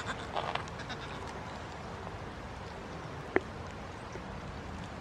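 A goat kid's short bleat tailing off at the very start, then quiet apart from a steady background hiss. A single sharp click sounds about three and a half seconds in.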